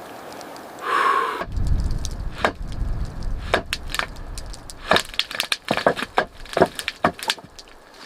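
A short pitched sound about a second in, then a run of sharp, irregular woody cracks and snaps, thickest in the second half.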